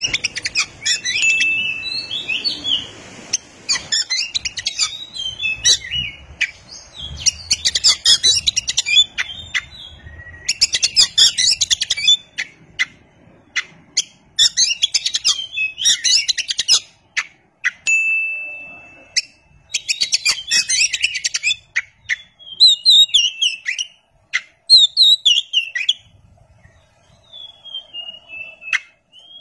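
Oriental magpie robin singing: bouts of rapid, varied chattering and whistled notes a few seconds long, separated by short pauses. About eighteen seconds in it holds one steady whistle, and near the end it gives a falling whistled glide.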